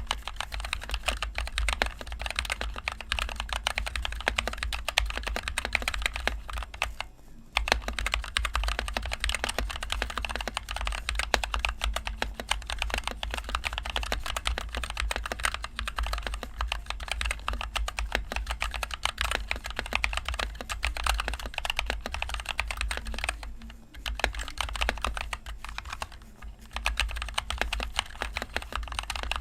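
Steady, fast typing on a NovelKeys NK65 Entry Edition mechanical keyboard with stock NovelKeys Cream linear switches and HyperX Pudding keycaps, a dense run of key clacks. It breaks off briefly about seven seconds in and twice more near the end.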